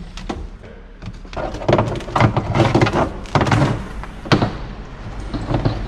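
Clear plastic water hoses being pulled and dragged out of a mini boat's engine bay, rubbing and knocking against the hull: a run of irregular knocks and rustling, with one sharp knock about four seconds in.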